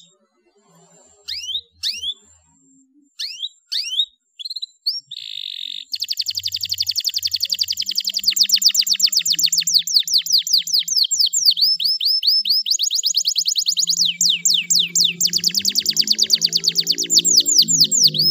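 Domestic canary chirping: a few separate down-sweeping chirps, then from about six seconds in a long, fast trill of repeated falling notes.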